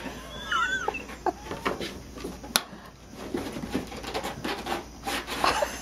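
Cats moving on a cardboard box: light pattering and scratching of paws on cardboard with a sharp tap about two and a half seconds in and a burst of scrabbling near the end. A short high chirping call sounds about half a second in.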